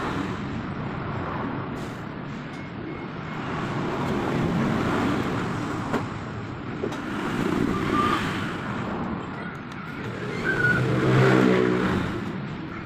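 Road traffic going by, vehicles passing one after another so the noise swells and fades, with one engine passing close about eleven seconds in. A single sharp click about six seconds in.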